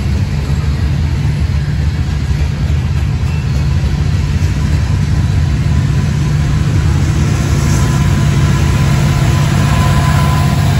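Freight train of tank cars, hoppers and flatcars rolling past close by, a steady low rumble of steel wheels on rail. Toward the end it grows louder and a higher steady tone joins in as a mid-train diesel-electric locomotive draws near.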